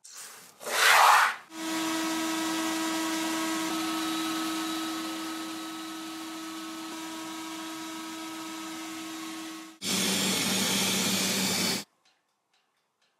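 Abrasive sandblasting of small tin propeller parts: several seconds of steady air hiss over a steady motor hum. It is preceded by a short, loud rush and followed by a separate two-second burst of air hiss, with hard cuts between the sections.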